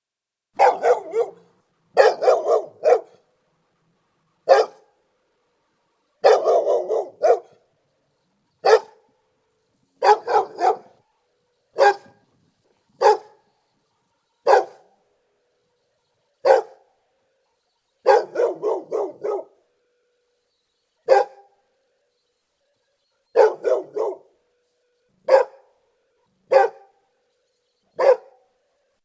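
Pit bull barking: single sharp barks and quick runs of several barks in a row, broken by pauses of a second or two.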